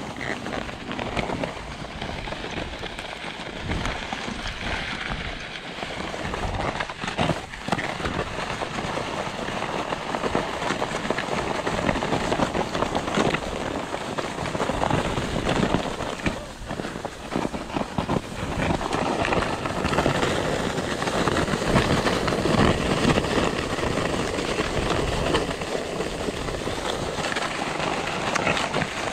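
Snowfeet mini skis scraping and sliding over hard-packed, icy snow, a continuous rough grinding noise full of small crackles and clicks from the ice chunks. It grows somewhat louder and rougher after about twelve seconds.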